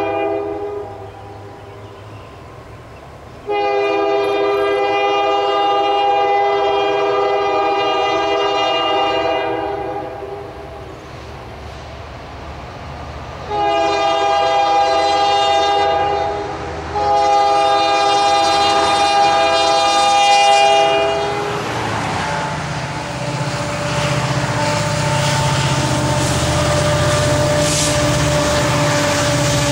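EMD GP60 diesel locomotive's air horn blowing a series of long chord blasts: the end of one about a second in, a long blast of about six seconds, then two more close together. The locomotive then passes, its diesel engine running with a steady low drone, followed by the freight cars clattering over the rail joints.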